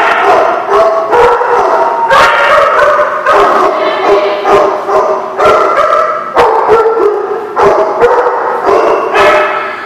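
Dogs barking, yipping and howling in rough play, over background music.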